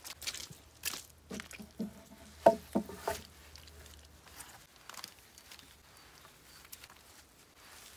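Wooden knocks as a log is set in place against wooden stakes and boards: a run of hollow, ringing knocks between about one and three seconds in, the last three loudest and close together. Around them are light scuffs and rustles of turf and dry leaves being handled.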